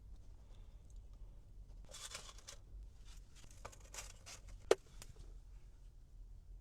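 Food wrapper rustling and tearing in short bursts, with one sharp click about two-thirds of the way in.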